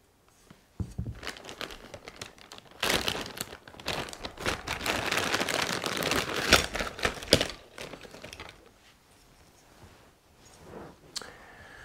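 Plastic packaging being handled and unwrapped, crinkling loudly for several seconds in the middle, then dying down to a few light rustles near the end.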